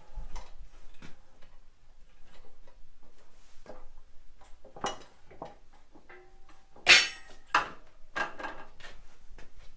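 Steel parts being handled and set down: scattered knocks and clanks, the loudest about seven seconds in with a short metallic ring.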